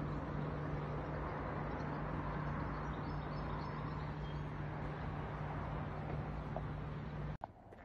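Steady rushing background noise with a constant low hum, which cuts off suddenly near the end.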